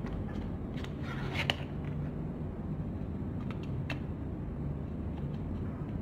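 Faint clicks and light rubbing from handling a liquid lipstick tube and its applicator, over a low steady room hum, with one sharper click about one and a half seconds in.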